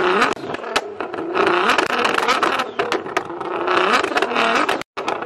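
Nissan GT-R's twin-turbo V6 revved in short bursts about every two seconds, each rising and falling in pitch, with sharp pops and crackles from the exhaust.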